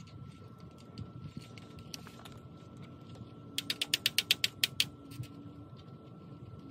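A rapid run of about a dozen sharp ratchet clicks lasting just over a second, from a ratcheting fastener or tool worked by hand on the steel pipe frame of a greenhouse end wall.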